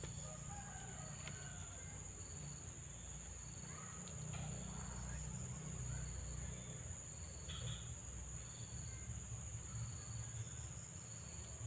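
Steady high-pitched drone of insects, with a short faint chirp repeating about once a second and a low rumble underneath.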